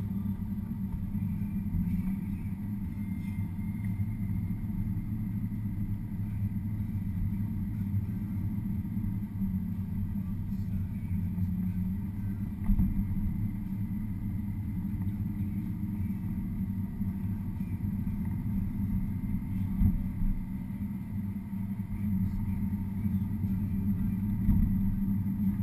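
Car driving slowly on a narrow country road, heard from inside the cabin: a steady low rumble of engine and tyres on the road, with a few short bumps, the sharpest about halfway through.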